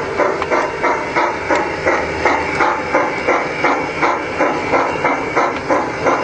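G-scale model steam locomotive chuffing steadily, about three chuffs a second.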